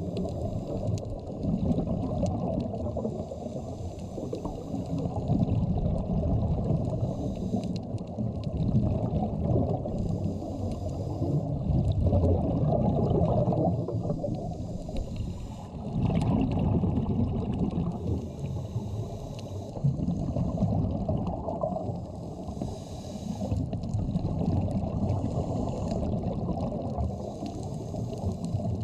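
Underwater sound of a scuba dive: a steady low rumble and gurgle of water, with short bursts of hiss and bubbling every two to three seconds from the diver breathing through a scuba regulator.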